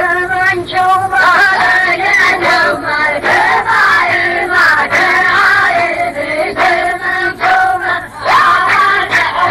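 Chorus of men chanting a line of Arabic verse in unison to a repeating melodic tune.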